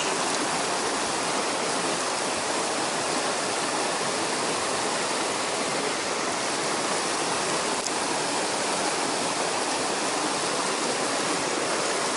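Mountain stream rushing over rocks through a whitewater riffle, a steady, unbroken roar of water, the stream running high with rainy-season rain.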